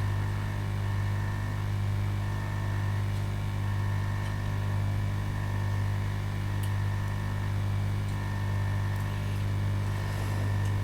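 Steady low electrical mains hum with a faint hiss and a few light ticks.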